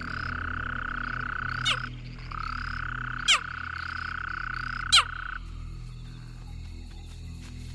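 Night-time bush chorus of calling creatures. A steady high trill holds for about two seconds, breaks briefly, then runs about three seconds more before stopping. Three sharp falling chirps come about a second and a half apart over a low steady hum.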